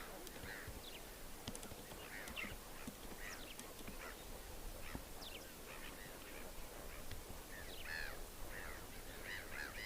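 A flock of flamingos calling: many short, overlapping calls that grow denser near the end.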